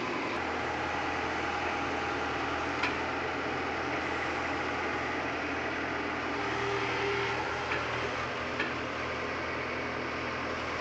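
Tata Hitachi compact crawler excavator's diesel engine running steadily while the boom is raised, with a few light clicks along the way.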